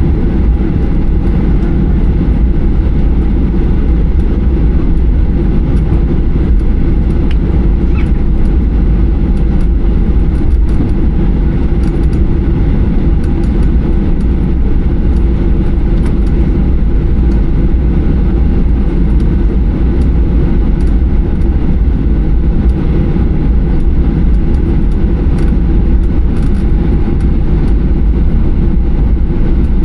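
Steady low rumble of jet engines and airflow heard inside the cabin of a Boeing 737-800, holding an even level throughout, with faint light ticks on top.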